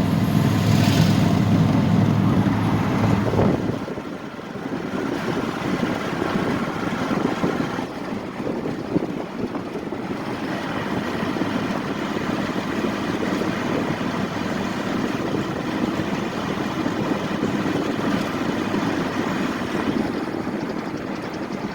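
Vehicle engine running close by, its low rumble dropping away sharply about three and a half seconds in, leaving a steady background rumble and hiss of traffic.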